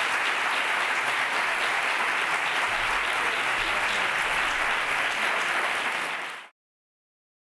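A large audience applauding steadily in a lecture hall, a dense even clapping that cuts off suddenly near the end.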